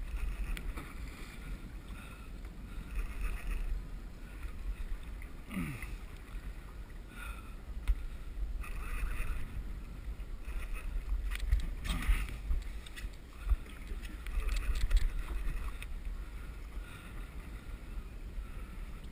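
Water sloshing and lapping against a small boat's hull, with a low wind rumble on the microphone. A few sharp clicks come from about halfway through.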